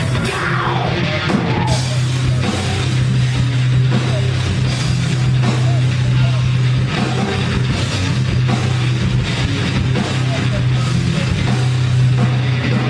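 Heavy metal music: a rock band playing with electric guitars and drum kit over a steady, held low note, with a falling pitch glide in the first second.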